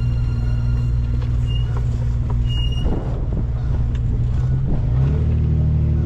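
A motor vehicle's engine running with a steady low drone, its pitch stepping up about five seconds in.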